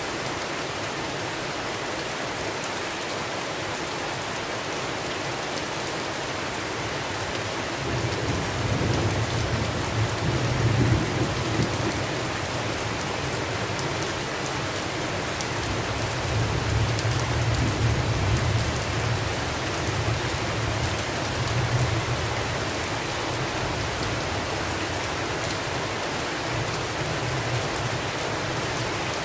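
Steady rain hissing throughout. About eight seconds in, a deep rumble of thunder rolls in, swells twice over the following quarter-minute and dies away near the end.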